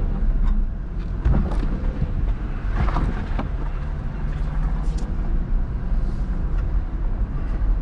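Jeep engine running steadily at low speed while crawling over a rough off-road trail, with several sharp knocks and rattles from the vehicle jolting over bumps.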